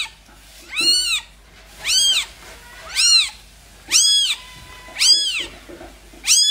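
Newborn kitten mewing in high-pitched cries, each rising and then falling, about one a second, six times.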